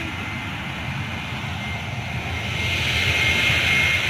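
Distant jet airliner's engines at takeoff power as it accelerates down the runway: a low rumble with a thin steady whine. The jet noise swells from about two and a half seconds in.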